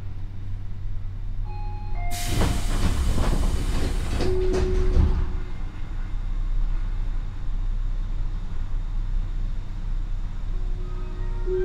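Inside a Tobu 9000 series electric train car standing at a station: the steady low hum of its motor-generator, with a loud hiss of air from about two seconds in, lasting some three seconds. Short electronic tones sound around the hiss and again near the end.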